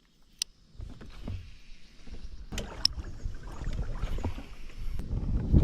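Small boat moving across water: a noisy rumble of water and wind with scattered knocks, nearly silent at first and growing louder in the second half.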